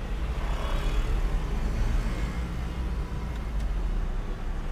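Steady low rumble of a Volkswagen Vento 1.6 TDI diesel and its road noise, heard from inside the cabin while driving, with a couple of faint clicks.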